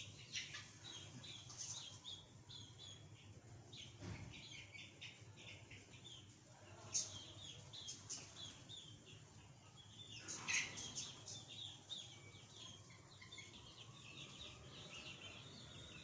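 Young chickens peeping, a steady stream of soft, short, high chirps, with a couple of louder chirps about seven and ten seconds in.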